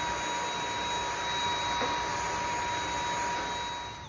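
Dyson V8 Animal cordless vacuum running steadily: a rush of air with a constant high-pitched whine. It cuts off near the end.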